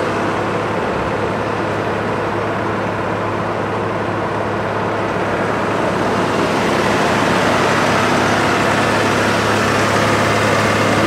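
Vögele Super asphalt paver's diesel engine running steadily with a constant low hum, growing a little louder about halfway through.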